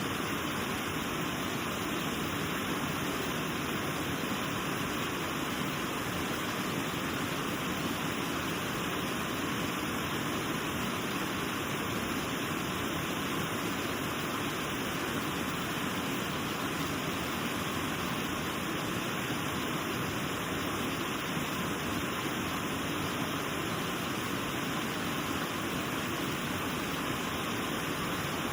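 Elk River's water rushing steadily over the falls, a continuous, even sound of running and falling water with no change.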